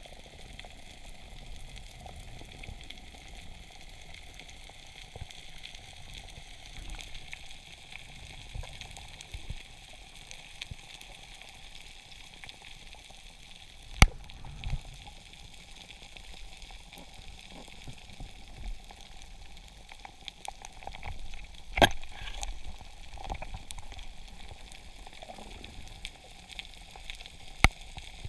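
Underwater reef ambience: a steady crackling hiss, typical of snapping shrimp, with three sharp knocks, about halfway through, about three-quarters of the way through, and near the end.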